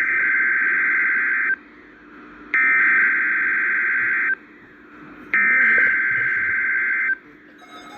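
NOAA Weather Radio SAME digital header: three identical bursts of warbling data tones, each almost two seconds long and about a second apart, heard through a Sangean CL-100 weather radio's speaker. This coded header opens the Required Weekly Test broadcast.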